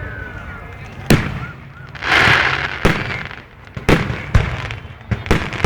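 Aerial fireworks going off: a string of sharp booms about once a second, with a longer, noisier burst about two seconds in.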